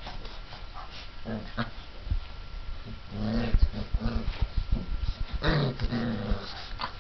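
Mastiff puppies, about five weeks old, growling in two short low bouts, one about three seconds in and another near six seconds, with soft thumps as they move about.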